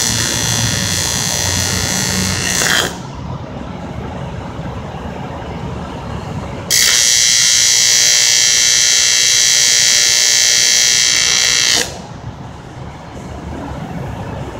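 TIG welding arc buzzing steadily on metal tubing, in two runs: the first cuts off about three seconds in, the second starts about seven seconds in and stops suddenly about twelve seconds in.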